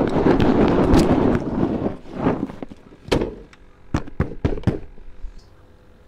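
A soft-sided fabric cooler bag being handled and closed up by hand: about two seconds of rustling, followed by a series of sharp knocks.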